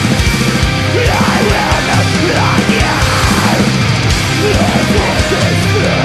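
Metalcore band playing live: heavy distorted guitars over rapid, driving kick-drum beats.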